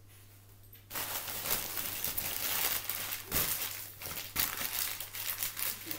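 Crinkly gift packaging being handled and crumpled, a dense crackling and rustling that starts about a second in.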